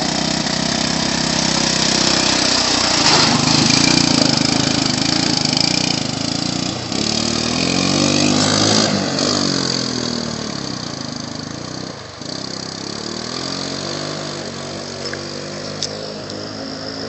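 Small quad ATV engine revving as it pulls away through a flooded trail, with water splashing from the tyres. The engine rises and falls in pitch as it speeds up, then fades into the distance over the last several seconds.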